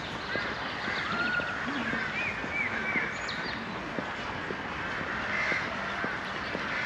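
Many birds calling at once: short, arching calls overlapping one another without a break.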